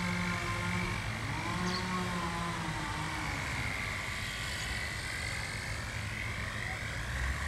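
Small electric remote-control toy helicopter in flight, its motor and rotor giving a steady whine that wavers up and down in pitch.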